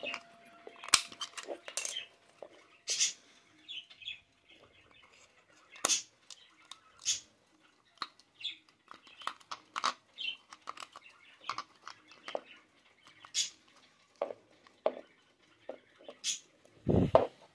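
Hands handling a clear plastic travel alarm clock, with irregular plastic clicks and scrapes as an AA battery is fitted into its quartz movement, and a heavier knock near the end.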